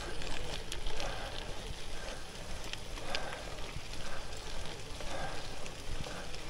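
Gravel bike tyres crunching and crackling over a loose gravel road, over a low rumble of wind on the microphone; the crackle swells and fades about once a second.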